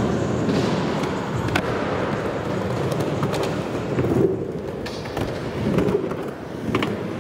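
Skateboard wheels rolling across a skatepark's hard floor and ramps, a steady rumble, broken by a few sharp clacks and knocks of the board.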